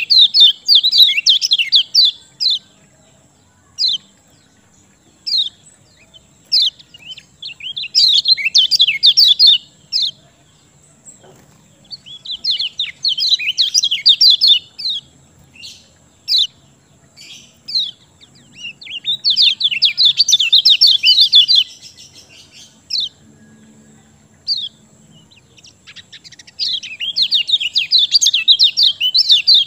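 Kecial kuning (yellow white-eye) singing in full voice: bursts of rapid, high chirping trills, each about two to three seconds long and repeating every five to seven seconds, with single short chirps in between.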